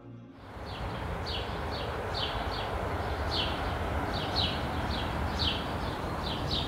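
A small bird chirping over and over in short, high notes that fall in pitch, about two or three a second, over a steady low rush of outdoor background noise.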